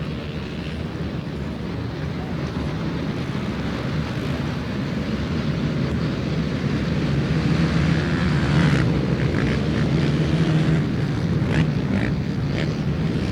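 A row of race ATVs launching off the start line together, many engines revving hard as a continuous, dense drone that builds in loudness over the first nine seconds or so.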